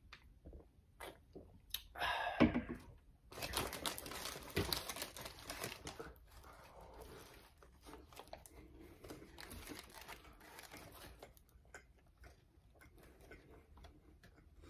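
Paper burger wrapper crinkling loudly for a couple of seconds, then softer rustling of the paper while a burger is bitten into and chewed. A brief loud sound comes about two seconds in, just before the crinkling.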